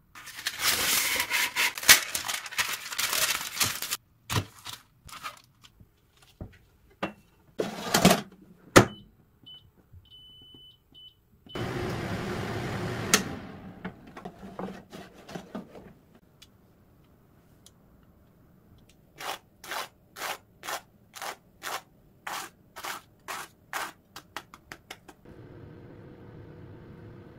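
Kitchen handling sounds around a digital air fryer: rustling and clatter, a few short high electronic beeps from its control panel, and a brief rushing burst. Then a run of about a dozen evenly spaced clicks, about two a second, followed by a faint steady hum.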